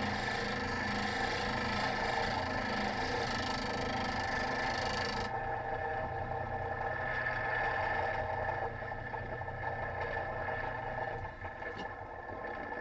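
Electric grinder running, with a steel chisel held against the grinding wheel giving a steady hissing scrape for about the first five seconds. The wheel then spins on without contact, and its hum drops out and fades near the end as it winds down.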